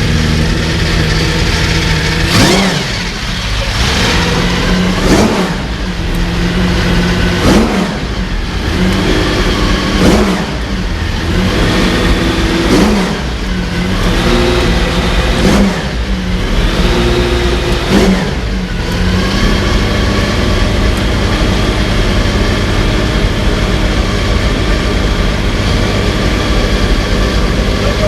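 Porsche 917's air-cooled flat-twelve racing engine running, the throttle blipped in about seven short revs a couple of seconds apart, then settling into a steady idle for the last third.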